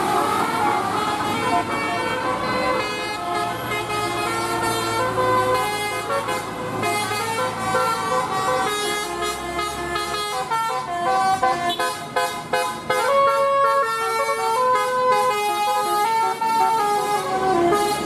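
Bus telolet horn, a multi-tone 'Basuri' melodic air horn, playing a tune of held notes that step up and down in pitch, over bus engine and passing-traffic noise.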